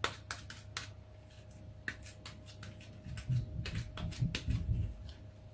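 Gloved hands pressing and patting a ball of soft dough flat: a run of small sticky clicks and crackles, with a cluster of soft, louder pats about three to five seconds in.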